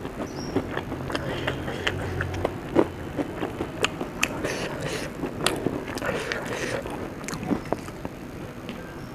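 Close-up chewing and biting of food, with sharp crunches scattered irregularly through.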